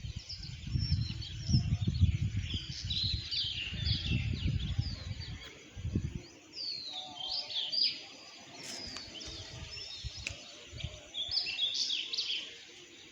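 A flock of sparrows chirping, many short overlapping chirps throughout. A low rumble comes and goes underneath, loudest in the first six seconds.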